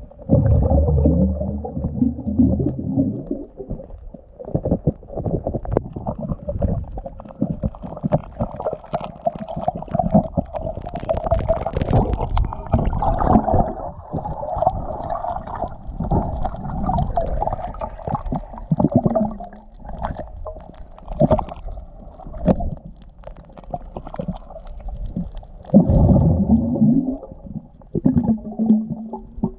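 Muffled underwater sound picked up by a submerged camera: water gurgling and sloshing with many scattered clicks and knocks. Deep rumbles come right at the start and again about 26 seconds in.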